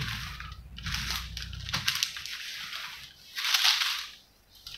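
Clothes iron being slid over baking paper, the paper rustling and crinkling in several strokes, the loudest near the end, as grated candle wax is melted into a printed sheet.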